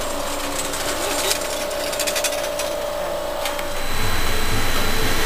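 Level-crossing barrier drive whining steadily with a fine rhythmic buzz and a few clicks while the booms move. About four seconds in it gives way to a louder low hum and rush: an electric locomotive approaching with a freight train.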